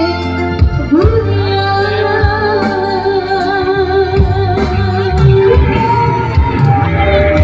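Dangdut music from a kecimol street band: a voice holds a long wavering note over repeated drum hits.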